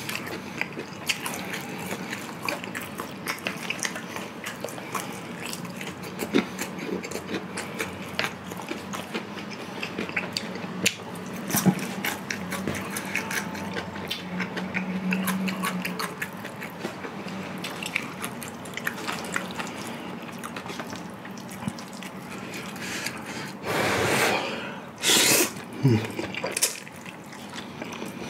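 Close-up wet chewing and small mouth clicks of a person eating a mouthful of food, then two loud slurps of black-bean instant noodles near the end.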